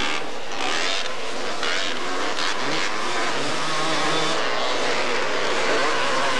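Two-stroke 250cc racing ATV engines revving up and down as they race over the jumps of a dirt track, their pitch wavering and climbing around the middle. Several short blasts of engine noise come in the first couple of seconds.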